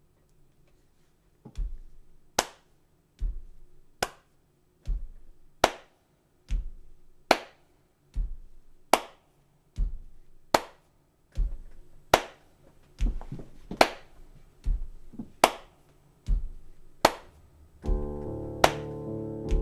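A hand-played percussion loop on a loop station: a steady beat of a low thump alternating with a sharp slap, a hit a little under every second, starting about a second and a half in. Near the end, piano chords come in over the beat.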